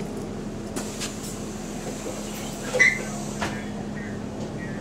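An unrefurbished bus's cooling fan running with a steady, even hum, heard from inside the bus. Short knocks and clatters from the bus interior break in, the loudest a little under three seconds in.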